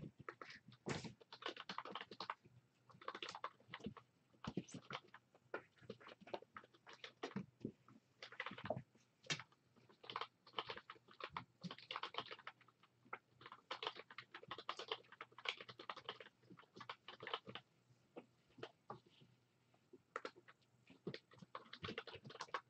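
Kitten playing on the floor, its claws and paws making faint, irregular clicking, scratching and pattering in quick bursts.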